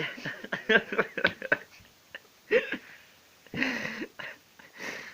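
A person's breathy, stifled laughter in short bursts: a quick run of huffs near the start, then a few separate breathy gasps.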